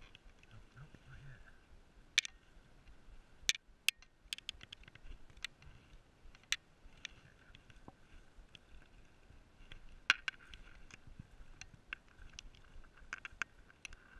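Irregular sharp clicks and taps from hands handling a baitcasting rod, reel, line and lure, with a few louder snaps about 2, 3.5 and 10 seconds in.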